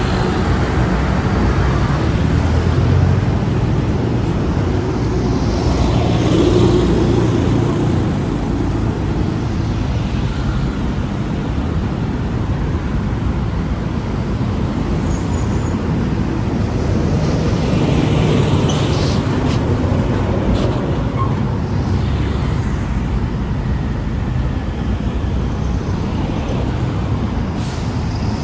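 Steady road traffic, with vehicles swelling louder as they pass, most noticeably a few seconds in, around six seconds in and later around eighteen seconds in.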